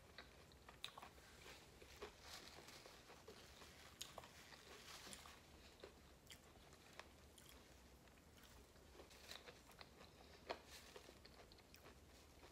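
Faint crunching and chewing of breaded fried chicken: scattered small crisp crunches as the fried coating is bitten and chewed.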